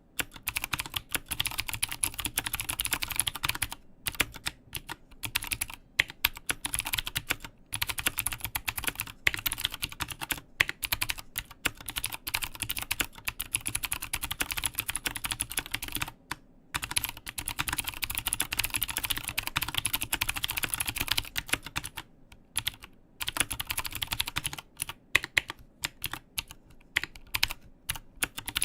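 Fast continuous typing on a mechanical keyboard with Cherry MX Blue clicky switches in an aluminium case, a dense run of sharp key clicks with a few brief pauses.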